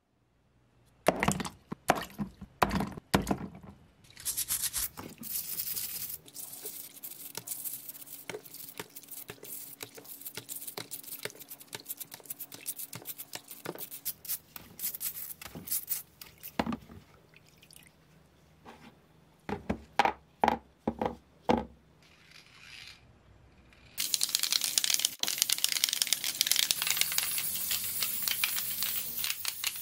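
Hand work on a pressed-steel toy truck's parts: a quick run of sharp knocks, then several seconds of scraping and rasping. More knocks follow, then a steady loud hiss starts suddenly a few seconds before the end.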